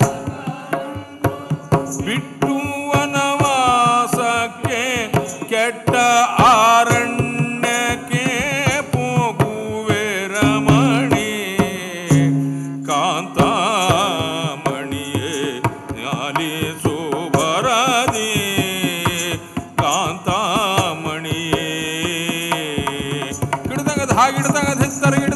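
Live South Indian puppet-theatre music: an ornamented melody that slides between notes over a steady drone, with drum strokes throughout.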